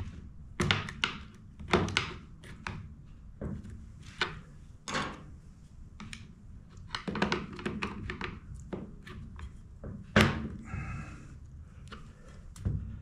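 Husqvarna 455 Rancher chainsaw parts being handled and fitted, the choke linkage being worked into its lever: irregular sharp clicks, taps and knocks of plastic and metal parts, with the loudest knock about ten seconds in followed by a short rattle.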